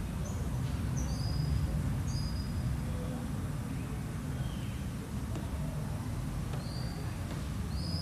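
Short, high, flat whistled notes sound several times, often as a higher note followed by a lower one. They clump near the start, around one and two seconds in, and again near the end, over a steady low rumble.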